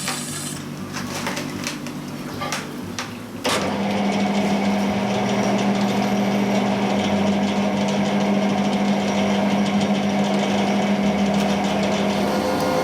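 Metal lathe running with a few light clicks, then about three and a half seconds in the cutting tool bites into the steel drive shaft and a loud, steady cutting noise with a low hum begins as the lathe turns down the shaft.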